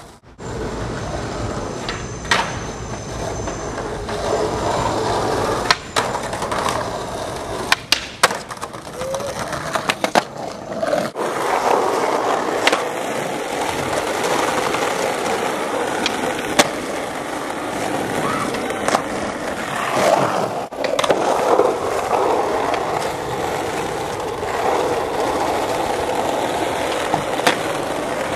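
Skateboard wheels rolling on street tarmac, broken every few seconds by the sharp clack of the board's tail popping and the deck landing.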